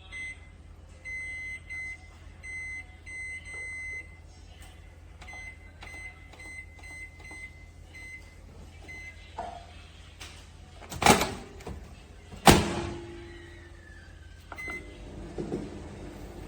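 Microwave oven control panel beeping as its buttons are pressed: a string of short, high, even-pitched beeps. Two loud clunks about a second and a half apart come past the middle.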